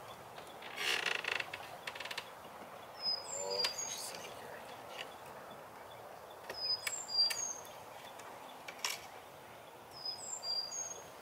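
A songbird repeating a short, high whistled phrase about every three and a half seconds, over scattered clicks, a brief rattle about a second in and sharp knocks later on as the chicken coop's fittings are handled.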